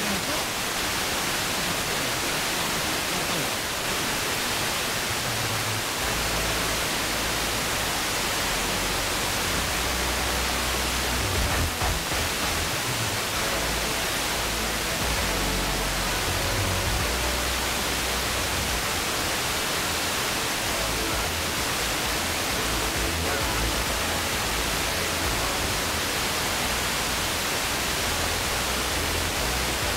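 Heavy hiss from an FM receiver with squelch off, tuned to a weak, distant station received by sporadic-E skip. From about six seconds in, faint music with low bass notes comes through under the noise.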